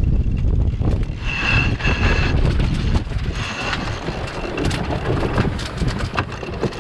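Wind buffeting the microphone aboard a sailing yacht during a tack, with a thin high tone heard twice in the first four seconds and a run of sharp clicks in the second half.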